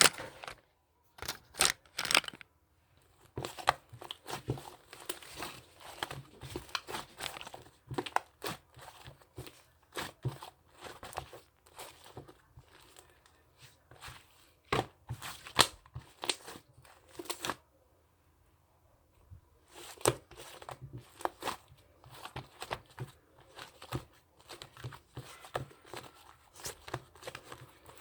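Irregular crinkling, crackling and tearing, as of paper or plastic being handled close to the microphone, with a pause of about two seconds a little past halfway.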